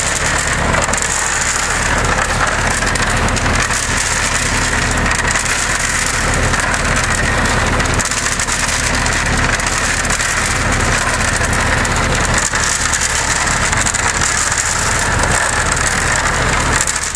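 Homemade cement mixer running, its drum driven by a hydraulic motor through a roller chain: a steady, unbroken machine hum with a constant rushing noise over it.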